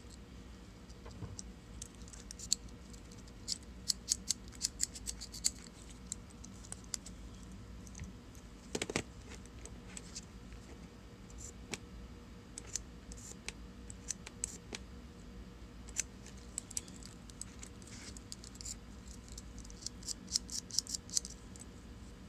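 Small, sharp metallic clicks and ticks in several bursts from a Mitutoyo No. 1507 dial indicator being worked by hand, its lifting lever and spindle moving through their travel. One louder click about nine seconds in.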